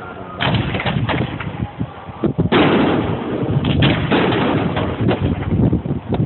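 Fireworks exploding overhead in a dense run of overlapping bangs and crackles with low rumble. Big bursts come about half a second and about two and a half seconds in.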